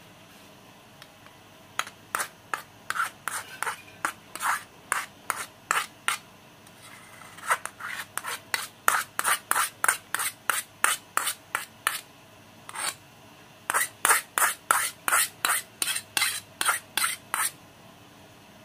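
Metal spoon scraping sticky glutinous-rice-flour dough out of a small metal pot, in short scrapes about two a second, with a brief pause about two-thirds through.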